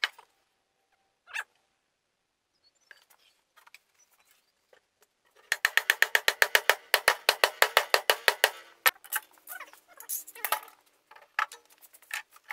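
Sharp knocks and clicks of wood and metal as trestle table parts and pipe clamps are handled on a workbench. A fast, even run of clicks, about ten a second, goes on for some three seconds from about halfway in, followed by scattered knocks and clatter.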